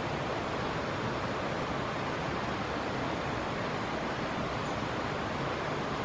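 Flowing river water making a steady, even rush with no breaks.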